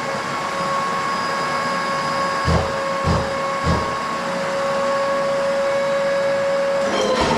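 Electric concrete floor grinder with its dust-extraction hoover running at a steady high whine. There are three low thuds a little over half a second apart midway through, and a brief dip in pitch with some clicks near the end.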